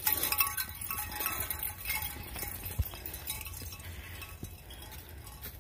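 Footsteps and dogs' paws crunching and rustling through dry fallen leaves on a forest trail. Light metal clinking sounds in the first couple of seconds, and the crunching thins out towards the end.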